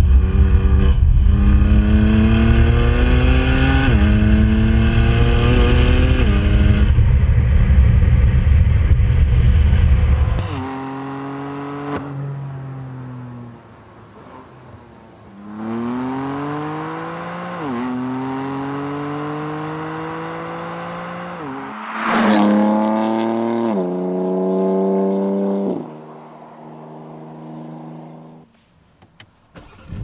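BMW M4's twin-turbo inline-six accelerating hard through the gears, its pitch climbing and dropping back at each quick upshift, over a heavy low rumble in the first third. About a third of the way in it lifts off, then pulls through the gears again with a short sharp crackle partway through, before the revs fall away near the end.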